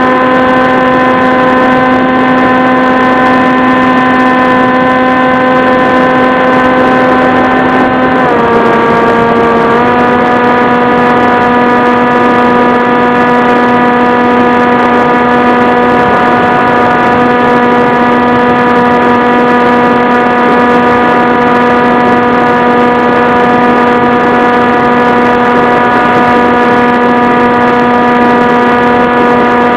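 The motor and propeller of an FPV model airplane running at a steady throttle, giving a constant humming drone. About eight seconds in the pitch dips slightly, then comes back up about two seconds later.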